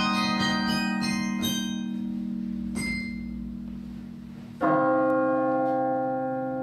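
Carillon bells being played: a quick run of struck notes in the first second or so that rings away, then a loud chord of several bells struck together about four and a half seconds in, left ringing.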